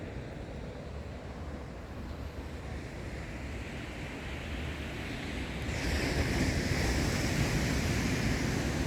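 Atlantic surf breaking on a sandy beach: a steady low rumble of the sea, with a wave's hiss swelling and growing louder about six seconds in.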